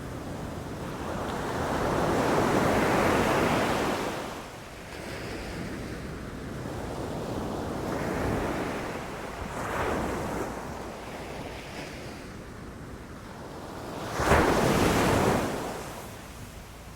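Ocean waves breaking on the shore, washing in and out in swells. Three waves break; the last, about fourteen seconds in, comes on suddenly and is the loudest.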